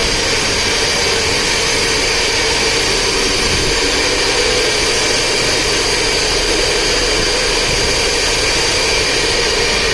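Loud, steady whir of hundreds of Bitmain Antminer S17 and S19 ASIC miners' cooling fans running together in a closed shipping container, with the container's large exhaust fans running at full speed.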